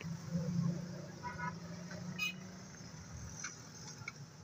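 Steady low rumble of road traffic, with a couple of short, faint higher-pitched sounds about a third and halfway through.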